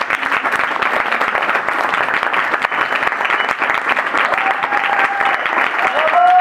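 Audience applauding, dense fast clapping, with a few voices cheering over it near the end.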